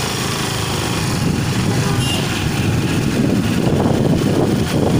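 Engine of a moving vehicle running, with wind and road rumble that grow louder from about a second in.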